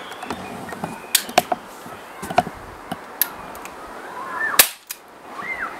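Walther PPQ .177 CO2 air pistol (non-blowback) firing a single shot, a sharp pop about four and a half seconds in, after a few light clicks as the pistol is handled and readied.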